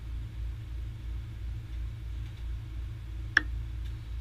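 A steady, pulsing low rumble, with a single sharp clink of a fork against a plate about three and a half seconds in.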